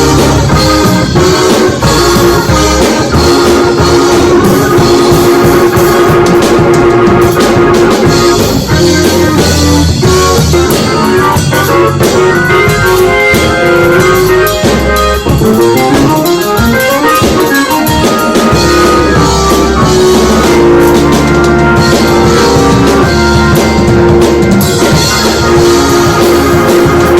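Instrumental band music with drum kit, guitar and keyboard, playing steadily.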